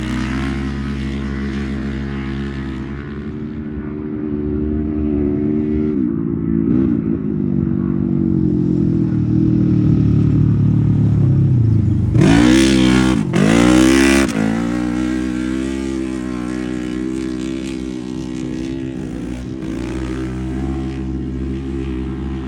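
Off-road UTV race engine running hard, its pitch drifting down and up. A little past halfway come two short, loud revs in quick succession, then it settles back to a steady run.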